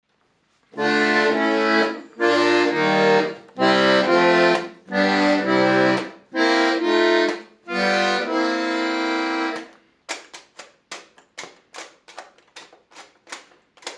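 Hohner Ouverture accordion playing a series of sustained chords with bass notes underneath, each held about a second and a half with a chord change inside it. Near the end this gives way to a quick run of short, clipped sounds, about four a second.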